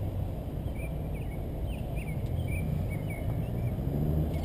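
Steady low rumble from a slowly moving car, heard through a camera mounted outside on its hood, with birds chirping repeatedly in the background.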